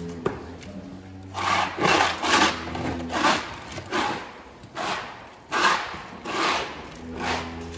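Long-handled floor scraper pushed across a wet, grooved concrete barn floor, scraping manure slurry in repeated strokes about one a second. A low steady hum is heard at the start and again near the end.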